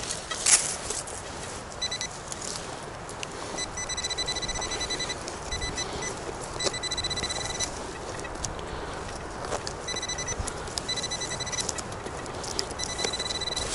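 A metal detector giving rapid pulsed electronic beeps in short runs, on and off, signalling a metal target. Sharp clicks and knocks of handling or digging and a rushing of wind run underneath.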